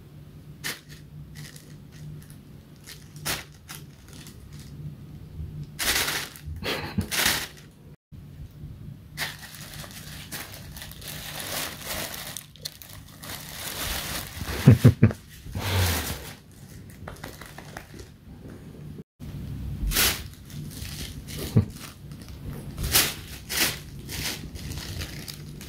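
Plastic bag crinkling and rustling in bouts as a cat moves about in and around it, with a brief louder low sound about halfway through.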